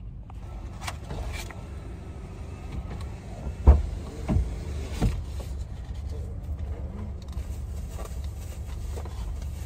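Steady low rumble inside a parked car with the engine running. About four to five seconds in come three knocks, the first the loudest, as the phone is handled and set in place.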